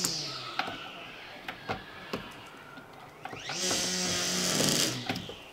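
Socket wrench on a long extension bar working at a car battery's hold-down bolt: scattered metal clicks and knocks, and two longer rasping ratchet sounds, one at the start and a louder one about three and a half seconds in.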